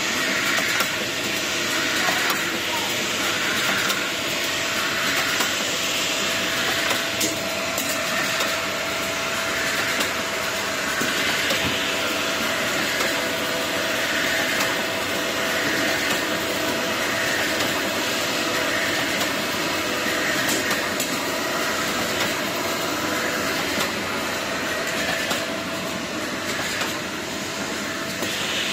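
PVA-film detergent capsule production machine running steadily: a continuous mechanical hiss and hum with a regular repeating cycle.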